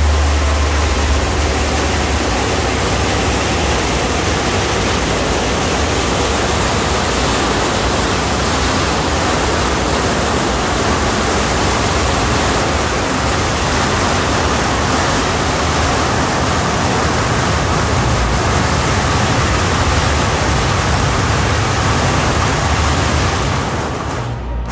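A long string of firecrackers going off in a dense, continuous crackle that stops abruptly near the end.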